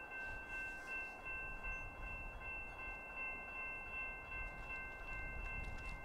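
Railroad grade crossing warning bell ringing continuously, a bright chime-like ring: the crossing has activated for an approaching train. A low rumble sits underneath.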